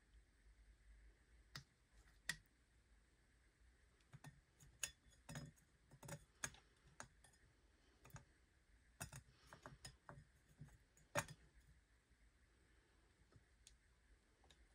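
Faint, scattered clicks and taps as small zucchini pieces and fingers knock against a small metal bowl. The sharpest click comes about eleven seconds in.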